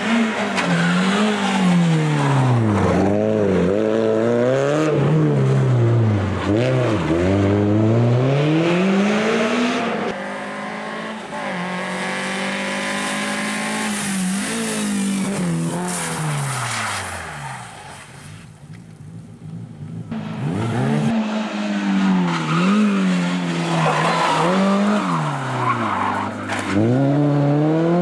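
Renault Clio RS N3 rally cars at full attack on a tarmac stage. The 2.0-litre naturally aspirated four-cylinder engines rev hard, and the pitch climbs and drops again and again through gear changes and lifts. One car passes and falls away in pitch, and about two-thirds of the way in the sound dies down briefly before the next car comes up at high revs.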